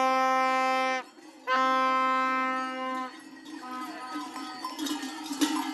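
Blue plastic toy horn blown in two long, steady, single-pitched blasts, the second longer, then a shorter, quieter toot. Near the end, voices and the din of the procession rise.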